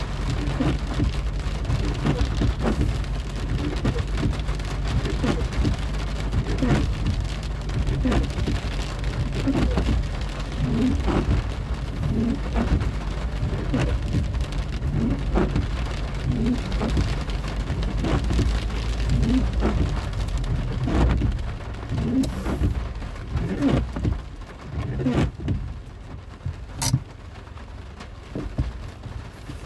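Rain falling on a car's roof and windscreen, heard from inside the cabin: irregular drops striking over a low steady rumble of the moving car. The rumble falls away after about 24 seconds, leaving a few separate drops.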